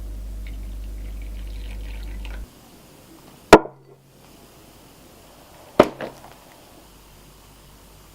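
A steady low hum cuts off suddenly, then two sharp knocks come about two seconds apart, each with a short ringing tail.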